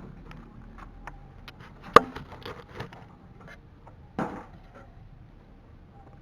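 A run of small clicks and light knocks from parts and wiring being handled on a scooter's front end, with a sharp knock about two seconds in and another just after four seconds.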